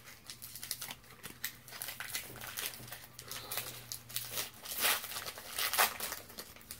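Foil booster pack of Pokémon trading cards being crinkled and torn open, a string of irregular sharp crackles.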